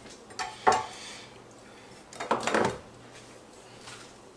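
Kitchen dishes and utensils being handled and knocked together: two short knocks about half a second in, then a longer clatter a little past two seconds.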